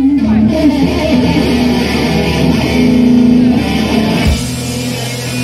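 Live rock band playing loud, with the lead electric guitar picking out a run of notes. A little over four seconds in a heavy low hit lands and a low bass note rings on.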